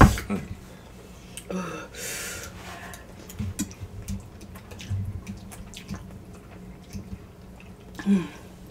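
Spicy noodles being slurped and chewed, with wet mouth sounds, short breathy slurps and scattered light clicks of forks on bowls. A loud knock comes right at the start and a short voiced grunt near the end.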